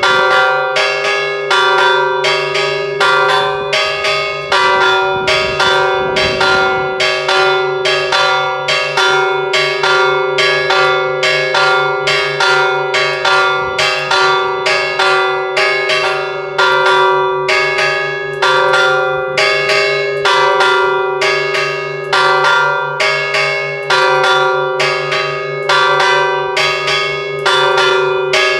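Church bells with wooden yokes rung in a fast, steady peal, about two to three clapper strokes a second, each stroke ringing on into the next.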